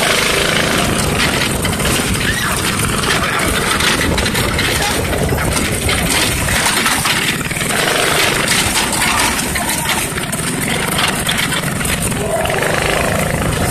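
Off-road go-kart's small engine running as the kart drives along a dirt trail: a loud, steady, noisy drone with many small knocks.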